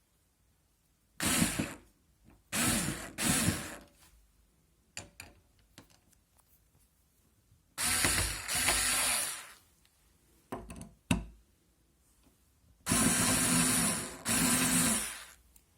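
Parkside cordless screwdriver running in short bursts, about six runs of one to two seconds each, mostly in pairs, with a few small clicks between them.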